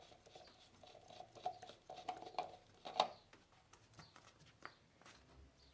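Faint plastic scrapes and clicks as a threaded plastic oil funnel is unscrewed from the engine's oil fill neck and the oil fill cap is screwed back on. The loudest click comes about three seconds in.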